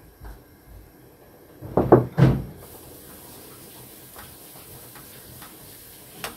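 A spoon stirring stew in a stainless-steel pot on a portable gas burner, with light clinks and knocks against the pot. Two louder clunks come about two seconds in, followed by a faint steady hiss.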